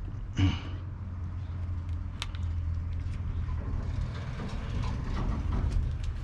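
A steady low rumble, with a few short, light clicks and taps from handling small parts.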